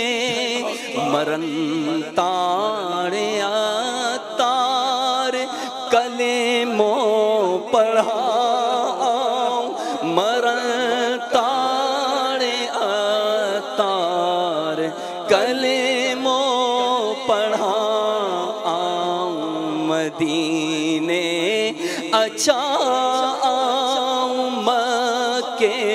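Male voices singing a wordless, chant-like melodic passage of a naat, with wavering held notes.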